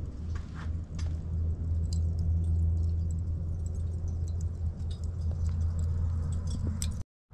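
Lump charcoal catching in a chimney starter, with scattered small sharp crackles and pops over a steady low rumble. The sound drops out briefly near the end.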